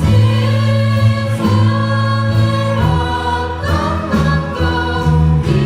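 A live church praise band and singers performing a worship song: voices hold long notes over a steady bass and keyboard accompaniment, and the chord shifts about three seconds in.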